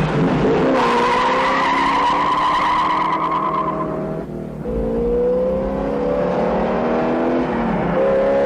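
1971 Ford Custom 500's 429 V8 accelerating hard, pitch climbing through the gears with an upshift about four seconds in and another near the end. Tyres squeal in the first few seconds as it launches.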